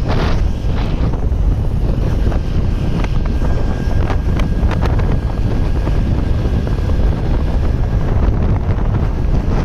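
Wind buffeting the microphone of a motorcycle riding at highway speed: a loud, steady low rumble. A faint thin whine is held from about three to eight seconds in.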